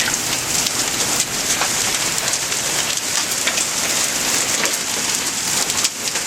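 Heavy rain and hail pelting down in a hard thunderstorm: a dense, steady hiss with scattered sharp ticks of hailstones striking and bouncing off hard surfaces.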